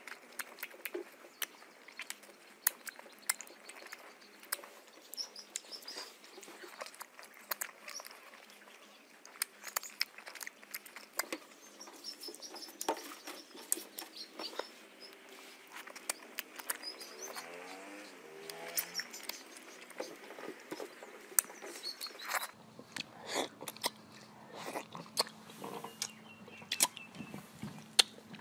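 Close mouth sounds of eating mango: wet smacking, sucking and sharp clicks as the teeth scrape the soft flesh off the skin of mango slices. A faint steady hum comes in near the end.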